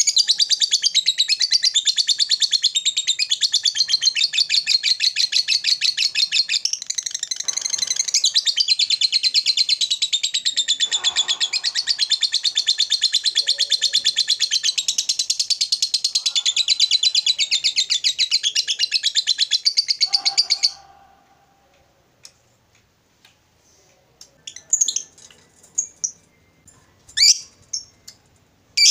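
Fischer's lovebird ngekek: a long, fast, unbroken chatter of high repeated notes lasting about twenty seconds, which cuts off suddenly. A few short scattered chirps follow near the end.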